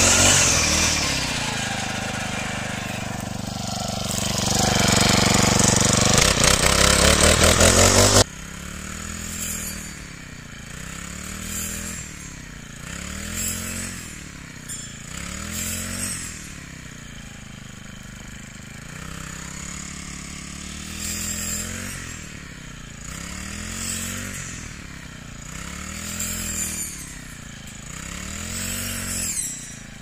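Brush cutter fitted with a wheat-cutting crop-guide plate, its small engine running hard close by for about the first eight seconds. It then drops suddenly quieter and farther off, revving up and easing back every couple of seconds as the blade swings through the standing wheat.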